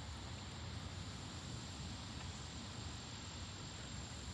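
Steady outdoor noise of wind through trees, a hiss over a low rumble, with no thunderclap or other distinct event.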